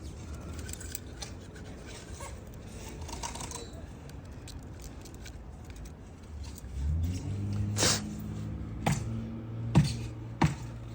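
Light metal scraping and jangling as torch tip cleaner wires are worked through the passages of a lawn mower carburetor. A low steady hum comes in about two-thirds of the way through, with a few sharp knocks near the end.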